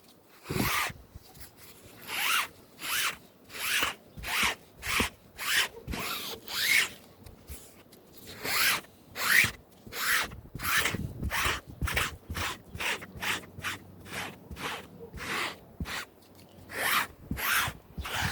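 A sponge rubbing top dye into a fabric convertible top, a rhythmic scrubbing swish of quick back-and-forth strokes, a little under two a second.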